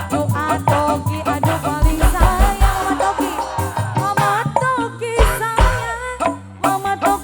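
Music from a live singa barong troupe: drums beating steadily under a wavering, bending melodic lead.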